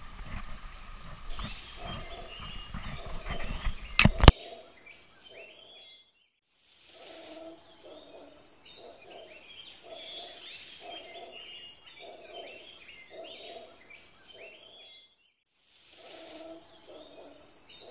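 Wind and handling rumble on a GoPro microphone beside a stream, ending in a sharp knock about four seconds in. Then comes a sudden cut to wild animal and bird calls: a low call repeats about every two thirds of a second under high chirps, with two short silent breaks.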